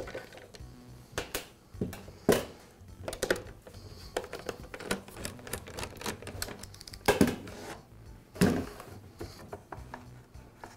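Small clicks, taps and clatter of screws, a hand driver and the plastic housing and blow tube of a Husqvarna leaf blower being worked and set down on a sheet-metal workbench, as the blower's outer impeller housing is taken apart. Three louder knocks stand out, about two, seven and eight and a half seconds in.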